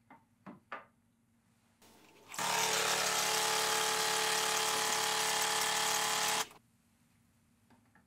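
A few light clinks as a glass cup is set on the drip tray. Then the DeLonghi Magnifica ESAM 4200's vibratory pump buzzes steadily for about four seconds as it runs hot water out of the wand for an Americano top-up, and stops abruptly.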